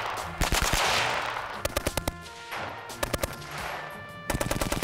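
A 1916 Vickers .303 machine gun firing four short bursts of rapid shots, each burst trailing off in an echo.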